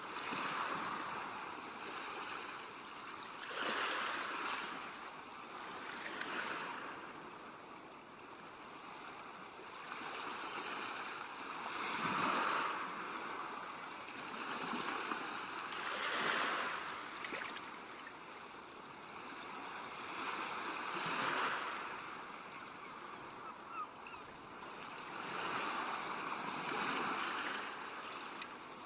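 Calm seashore ambience: gentle waves washing onto the shore, each one swelling and falling back every few seconds.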